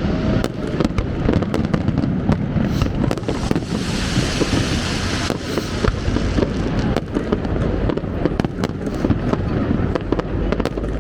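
Fireworks display going off: a steady stream of bangs and crackling pops over a low rumble, with a fizzing, crackling burst about four seconds in.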